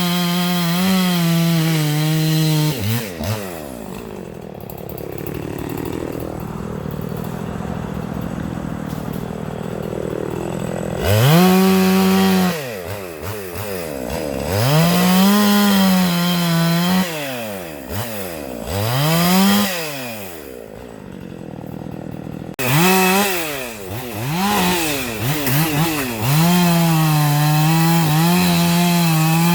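Two-stroke Husqvarna gas chainsaw revved to full throttle and dropped back to idle again and again: high at the start, idling for several seconds, then five or six throttle blips, and held high again near the end. While it is held high the pitch sags a little, as when the chain is cutting into wood.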